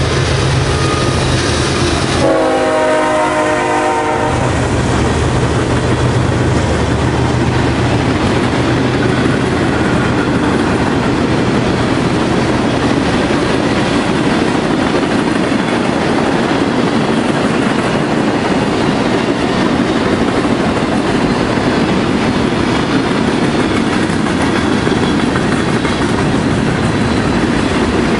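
Diesel freight locomotives pass at speed, their engines droning low for the first couple of seconds. A locomotive horn chord then sounds for about two seconds, and a long string of freight cars follows, rolling by with steady wheel and rail rumble and clickety-clack.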